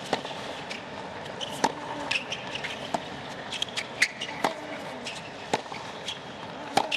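Tennis rally on a hard court: rackets strike the ball crisply about once every second or so, with short sneaker squeaks on the court between hits.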